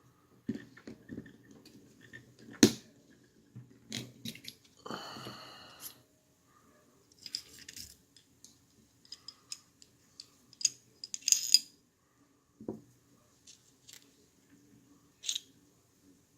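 Metal parts of a 1911 pistol clicking and knocking as it is taken apart by hand, with a scrape about a second long about five seconds in.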